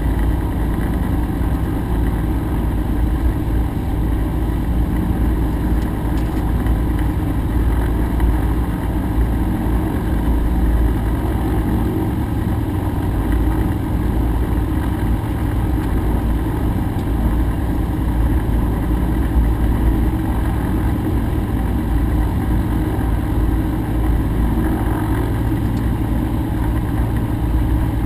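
Rotax engine of a Cessna 150 running steadily at low power with the propeller turning, heard from inside the cockpit.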